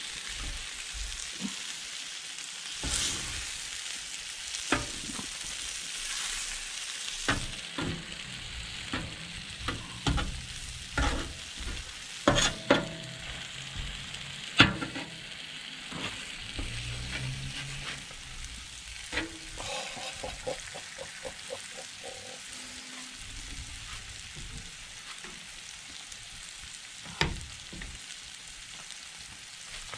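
Steak, peppers and onions sizzling on a Blackstone flat-top griddle, with metal spatulas scraping and clacking on the steel plate as the food is stirred. The clacks come irregularly throughout, with a quick run of taps around twenty seconds in.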